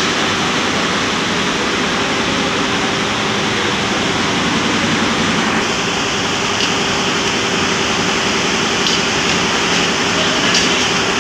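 Steady factory-floor machinery noise: a constant rushing hiss with a low hum under it, and a few faint clicks near the end.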